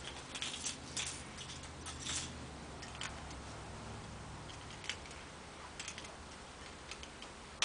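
Faint scattered clicks and light rustling from small tools and parts being handled, busiest in the first two seconds, with a sharper click at the end. A low hum runs under the first few seconds.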